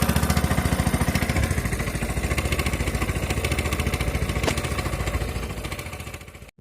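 Small boat engine running with a rapid, regular chug, easing off near the end as the boat slows on reaching the fishing spot.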